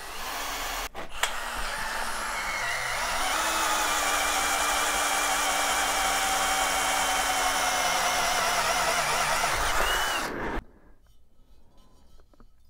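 Cordless drill boring through a steel box-section tube clamped in a vise, the motor running steadily under load. There is a brief break about a second in, and it stops suddenly near the end.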